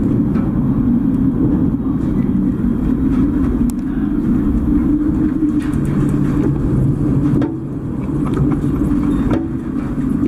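Steady low rumble with a droning hum, as of a ship's engines and wind in heavy seas. A second, lower hum joins about six seconds in, and the sound dips briefly twice near the end.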